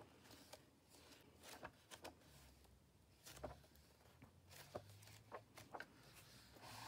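Faint rustles and soft flicks of paper as the pages of an old hardback book are turned by hand.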